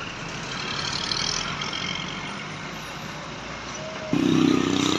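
Roadside traffic noise from a large vehicle passing, with a louder, deeper pitched sound starting suddenly about four seconds in.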